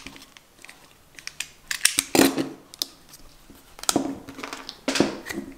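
Utility knife blade cutting through a rubber cable-gland shroud: a series of short scrapes and clicks, the loudest about two seconds in and again near four and five seconds, with handling knocks on the plastic work surface.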